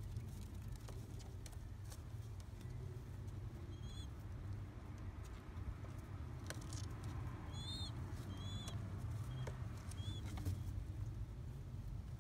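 Newly hatched pigeon squab giving a few short, high, arching peeps while its mother feeds it crop milk, with a few faint clicks over a steady low hum.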